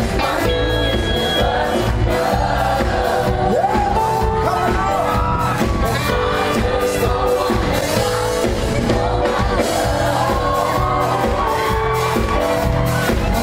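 High school band playing live, with male vocalists singing lead over horns and a steady beat.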